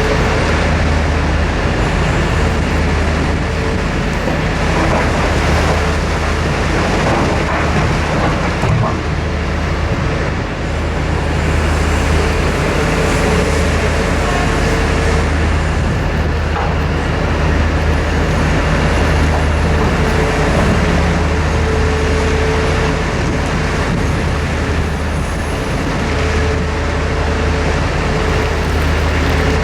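Liebherr R9350 mining excavator's diesel engine running steadily under load while digging and loading overburden: a constant deep drone, with a higher tone that comes and goes and a few faint knocks.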